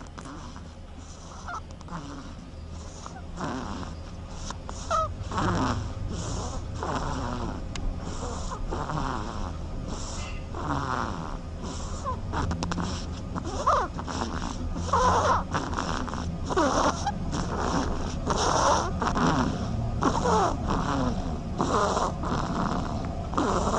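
A duck snoring: repeated raspy, breathy snore-like sounds, about one or two a second, growing louder over the first few seconds.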